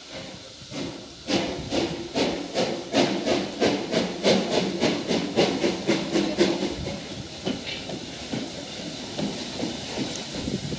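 LNER Q6 0-8-0 steam locomotive No. 63395, a two-cylinder engine, working steam: sharp exhaust beats about three a second over a steam hiss. About seven seconds in the beats die away, leaving a steady hiss.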